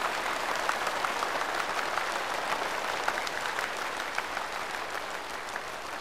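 Large audience applauding, a dense steady clatter of many hands that slowly dies down near the end.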